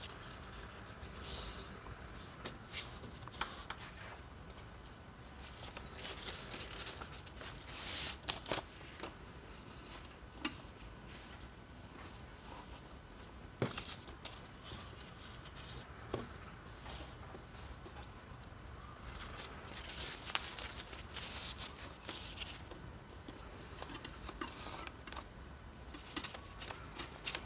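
Unbleached paper V60 coffee filters being folded along their seams and fitted into the drippers: faint paper rustling and creasing, with a few light taps.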